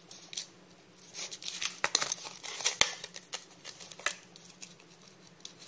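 Snap-off utility knife cutting out a stabilizer piece from a plastic sheet on a cutting mat: a run of short, irregular scratching and crackling strokes, sparse in the first second and then steady.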